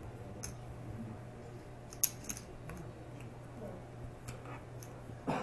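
Light clicks and snaps of playing cards and clay poker chips handled on a felt table, with one sharper click about two seconds in, over a low steady room hum.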